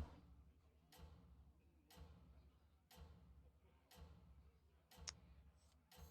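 Near silence with faint, even ticks about once a second, each followed by a low hum.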